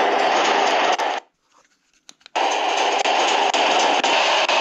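Reely Truck Sound simulator module playing a simulated truck engine through its small speaker, very loud, with a sound quality the tester finds poor. It cuts out about a second in, with a couple of clicks in the gap, and starts running again about a second later.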